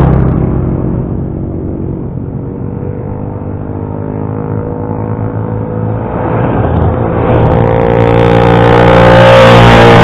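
Motorcycle engines. One motorcycle rides away from close by and fades over the first couple of seconds, then another approaches and grows steadily louder, passing close about ten seconds in.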